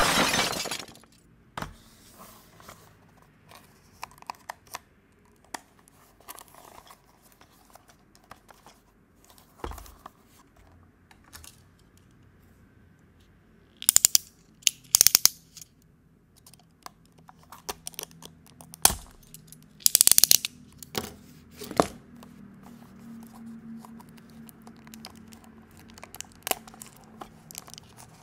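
Close handling of a small cardboard diecast-car box sealed with clear tape: light taps and rustles, with two pairs of short, harsh rasping bursts about midway and two-thirds through as a box cutter slits the tape seals, then crinkling as the tape and flap are pulled open. A sharp hit at the very start.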